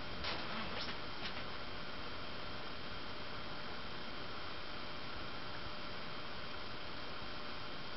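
A Hunter Original ceiling fan's oil-bath cast-iron motor running steadily, giving an even hum and hiss. A few light clicks come in the first second or so.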